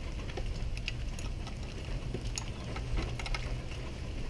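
A wrench on metal bolts, giving scattered, irregular clicks and ticks as the bolts are snugged down, over a low steady hum.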